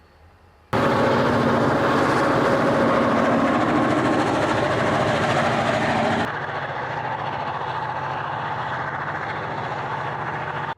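EMD diesel locomotives running hard under load, a loud steady engine sound that starts abruptly about a second in. It cuts suddenly to a quieter, duller engine sound about six seconds in.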